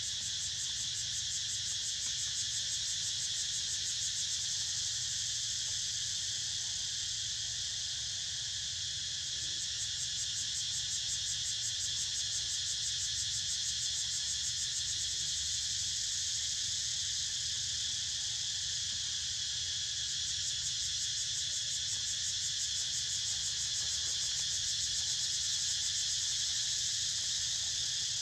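Insect chorus: a steady high-pitched buzz with a fine, rapid pulse, holding even with no break.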